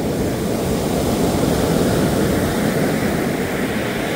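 Sea surf washing up a sandy beach and draining back, a steady rushing wash that swells to its loudest about halfway through and eases a little near the end.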